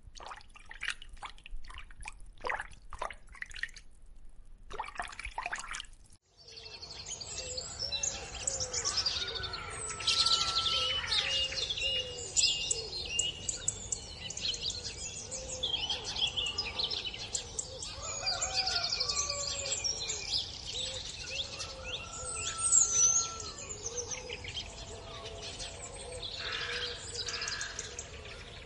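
Sparse, sharp short chirps for a few seconds, then an abrupt change about six seconds in to a dense chorus of many birds calling and chirping over one another.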